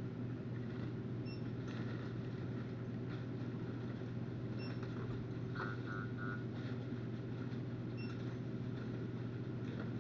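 Steady low electrical or machine hum, with faint short chirps recurring every few seconds and three quick electronic beeps about halfway through.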